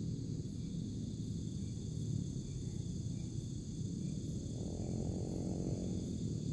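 Steady high-pitched chorus of night insects over a low rumble, with a faint drone that swells and fades about four and a half seconds in.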